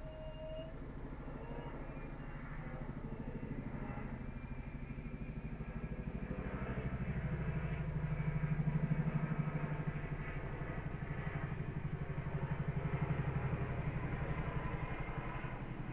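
Engine of a passing motor vehicle, a low pulsing rumble that builds to its loudest about nine seconds in, swells again a few seconds later, then fades.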